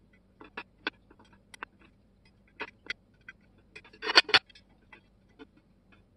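Irregular clicks and clinks of a cast iron level and its small metal parts being handled and taken apart by hand on a ceramic tray, with a louder clatter of several knocks about four seconds in.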